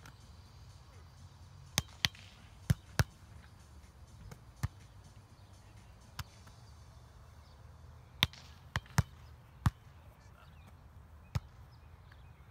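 A volleyball being struck by players' hands and arms during a rally. About eleven sharp slaps come at uneven intervals, some in quick pairs and others a second or more apart.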